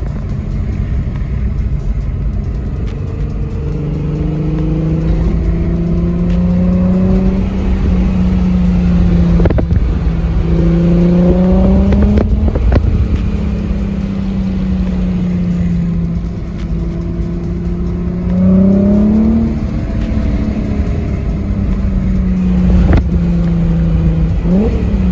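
3.6-litre VR6 engine of a Volkswagen Corrado, breathing through custom headers and exhaust with a Magnaflow muffler, running under way at a mostly steady note. The revs climb briefly about twelve seconds in, again about eighteen seconds in, and once more near the end.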